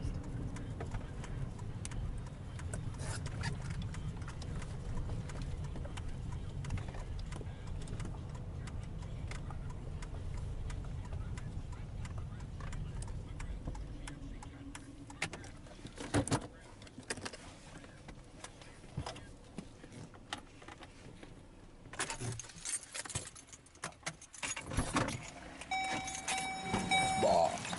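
Car cabin noise while driving: a steady low rumble from the engine and road that fades out about halfway as the car comes to a stop. Scattered clicks and knocks from handling inside the car follow, and a short beeping chime sounds near the end.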